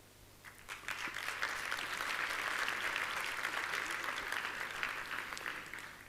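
Audience applauding. It starts about half a second in, builds over the next second, then fades out near the end.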